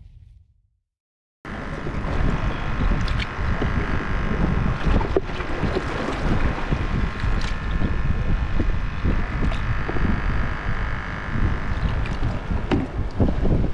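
After about a second and a half of silence, wind buffets the microphone with a loud, uneven rumble, over a steady droning tone.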